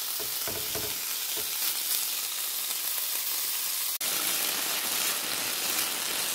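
Diced beef sizzling in oil in a nonstick frying pan while a wooden spoon stirs it, with a few soft knocks of the spoon early on. The sizzle drops out for an instant about four seconds in.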